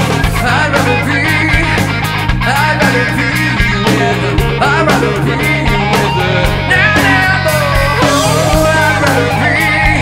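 Rock band playing: drum kit, bass guitar and guitar, with a man singing lead over a steady beat.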